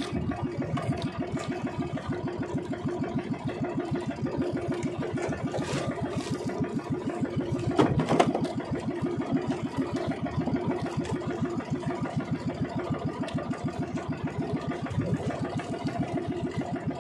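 Small engine of a motorized outrigger boat (bangka) running steadily under way, an even rapid putter, with a brief knock about eight seconds in.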